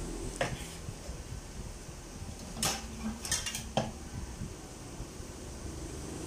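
A few short, sharp clinks of a metal spoon and dishes, about four over a couple of seconds, over the steady low sound of the squid adobo simmering in a wok on the gas burner.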